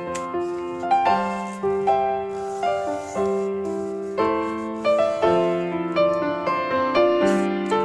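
Background piano music: a gentle melody of single notes struck about twice a second, each fading after it is played.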